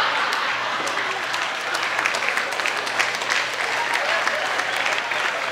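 Live stand-up audience applauding a punchline: dense, steady clapping that eases off slightly toward the end.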